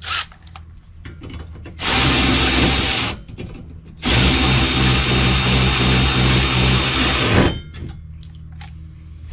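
Cordless drill running in two bursts, a short one of about a second and then a longer one of about three seconds, steady in pitch.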